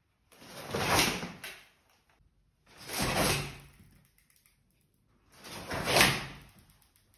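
Three whoosh sound effects, each a swelling rush of noise that rises and fades over about a second and a half, with silence between them.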